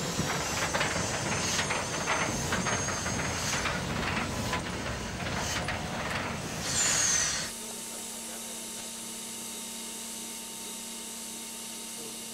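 Prussian T11 steam tank locomotive hissing steam, with scattered knocks and a louder burst of hiss about seven seconds in. Then the sound cuts off abruptly to a steady low hum.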